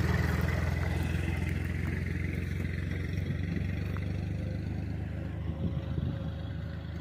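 Farm tractor's diesel engine running with a steady low chug, slowly fading as the tractor drives away.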